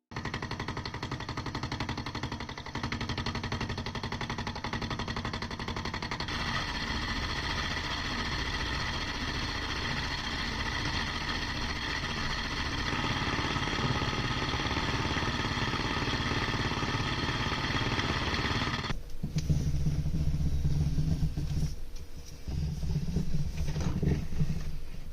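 Small benchtop machine tool running while cutting metal stock: a steady motor whine with several fixed tones. About nineteen seconds in, the sound turns lower, heavier and uneven.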